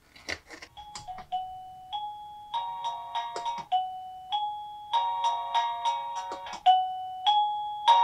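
Wireless doorbell chime unit playing an electronic ringtone: single ding-dong notes alternating with fuller ringing chords, the pattern repeating about every three seconds, with a few sharp clicks near the start as its buttons are pressed.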